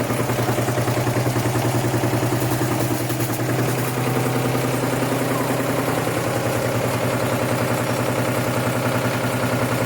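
Hotwired washing machine motor running steadily, spinning the drum: a continuous hum with a fast, even pulse.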